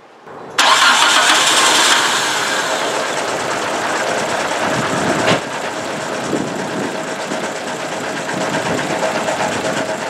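1995 Nissan Sentra's four-cylinder twin-cam 16-valve engine catching about half a second in and then running at idle, loudest for the first second or so before settling, with a sharp click near the middle. The engine is running rough with a dead misfire on cylinders two and three.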